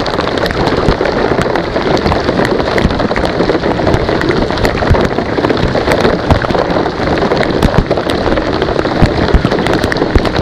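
Heavy rain falling hard on a lake and a kayak, a dense steady hiss with many sharp, close drop hits.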